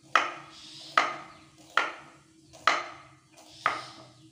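Kitchen knife slicing a shallot on a wooden cutting board: five sharp knocks of the blade striking the board, about one a second, each dying away quickly.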